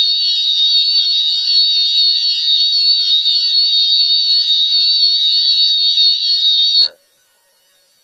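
Emergency Alert System attention tone from a monthly test: a loud, steady, high tone that cuts off abruptly about seven seconds in, then near silence.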